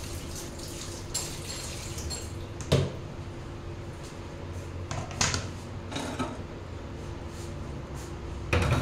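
Kitchen utensils knocking and clinking a few separate times, the sharpest knock about three seconds in and another near the end, over a steady low hum.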